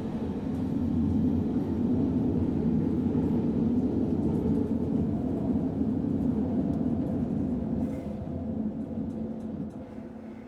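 Interior of a commuter train: the steady low rumble of the carriage running on the rails, easing off over the last two or three seconds as the train slows for its arrival.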